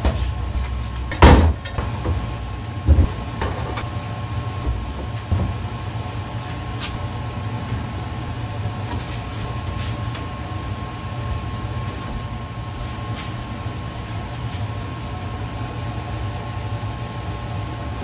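Metal pipe clamps knocking and clanking as they are set and tightened across a glued-up panel of wood strips. There is one sharp knock about a second in and a few lighter knocks over the next several seconds, over a steady low hum.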